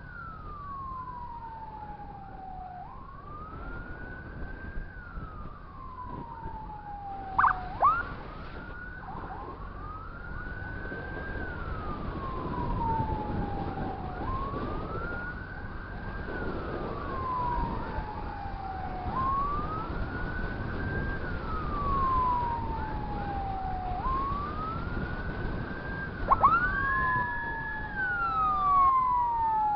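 Emergency sirens sounding together. One tone climbs quickly and then falls slowly, repeating about every four to five seconds, while a faster warble runs with it. Two sharp, loud upward blasts come about seven seconds in and again near twenty-six seconds, over a low rumble of road and wind noise.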